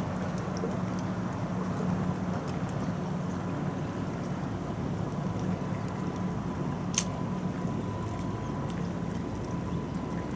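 Steady low hum under a hiss of outdoor background noise, with one short sharp click about seven seconds in.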